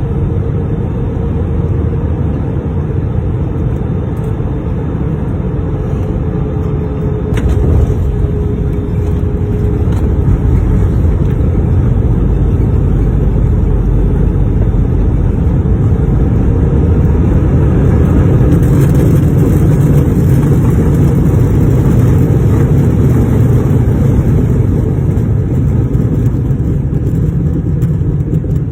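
Airplane noise during landing: a loud, steady low rumble that grows louder about seven seconds in and eases off near the end.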